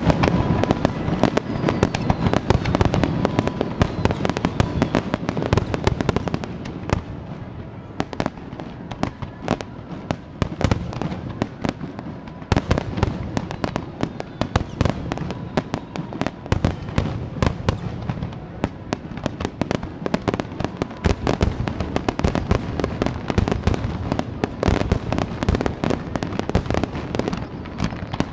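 Aerial fireworks shells bursting in a dense, continuous barrage, with many sharp bangs a second and crackle between them.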